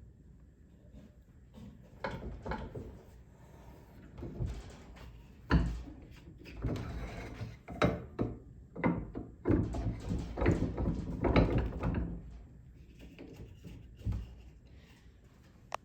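A run of irregular knocks and clunks, as of objects being handled and set down, loudest in the middle stretch and fading out near the end.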